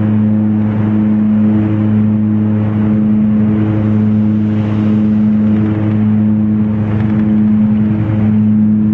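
Steady drone of a 19-seat turboprop airliner's engines and propellers heard from inside the cabin: a strong low propeller hum with a second hum above it, over a constant rush of air.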